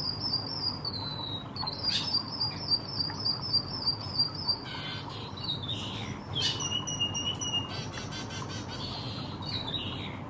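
White-headed munia (emprit kaji) singing a canary-like song: high rippling trills of quick repeated notes, then a long steady whistle about six seconds in and a short falling note near the end.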